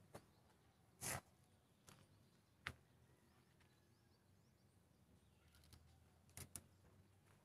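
Near silence, broken by a handful of faint sharp clicks; the strongest comes about a second in, and two come close together near the end.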